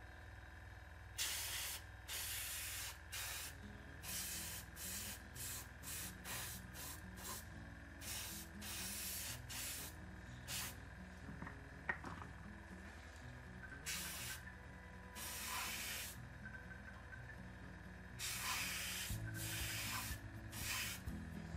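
Airbrush, fed by a compressor, spraying paint onto a plastic scale model in many short hissing bursts of a fraction of a second to about a second each, with a couple of longer pauses.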